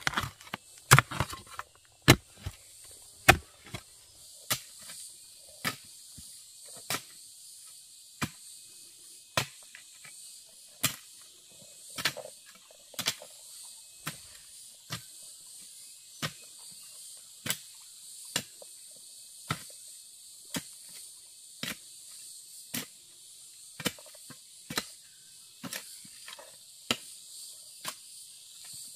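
A long-handled digging tool striking down into earth and stones, about one strike a second, as a pit is dug by hand. Insects keep up a steady high chirring behind it.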